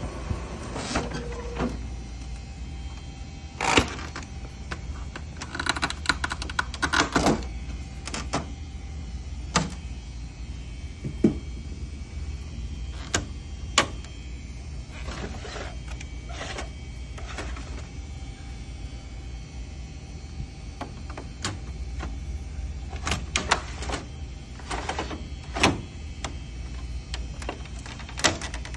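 Scattered plastic clicks, knocks and short sliding scrapes from an HP Color LaserJet MFP's covers and imaging drum being handled, over a steady low hum.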